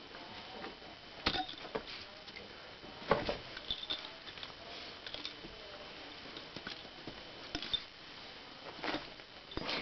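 Shetland sheepdog rubbing and pawing at a foam yoga mat on carpet: scattered scuffs, rustles and light knocks of fur and paws against the mat, the loudest about a second and three seconds in.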